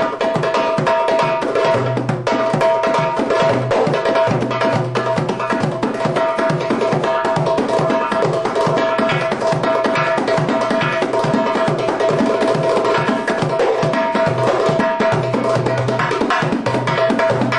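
Derbakki (Arabic goblet drum) with a synthetic head played by hand in a fast, dense rhythm: rapid finger strokes and rolls, with deep dum strokes recurring beneath and a steady ring from the head.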